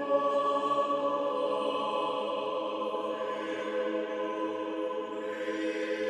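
Background choral music: voices holding long, slow chords that change only gradually.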